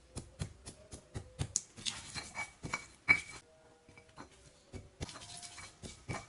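A stone pestle pounds and grinds shallots and garlic in a stone mortar (cobek and ulekan): a run of irregular knocks, stone on stone, with crunching as the cloves are crushed.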